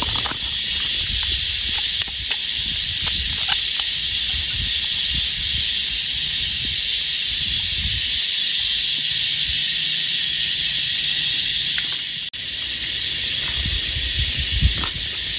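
Loud, steady, shrill chorus of cicadas droning without a break, with occasional low thumps underneath.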